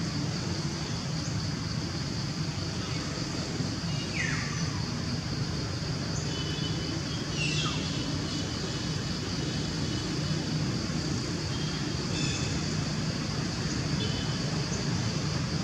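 Outdoor forest ambience: a steady high hiss over a low rumble, with a few short bird calls, two of them falling in pitch about four and seven seconds in.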